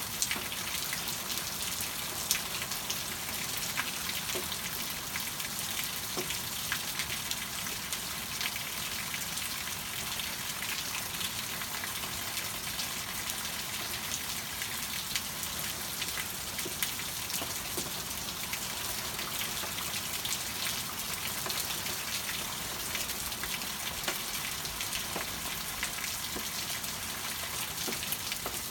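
Steady rain: an even hiss with many separate drops ticking.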